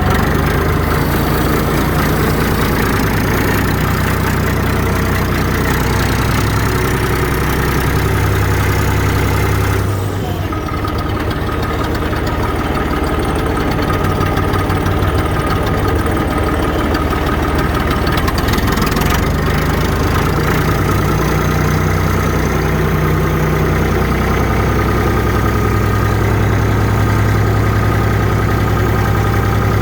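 Massey Ferguson 263 tractor's Perkins turbodiesel engine idling steadily while it warms up, with a brief dip and change in the engine note about ten seconds in.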